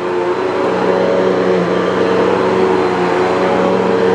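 Bissell CleanView 9595A corded upright vacuum cleaner running steadily as it is pushed over carpet, its motor giving a constant hum with several held tones over a broad rush of airflow.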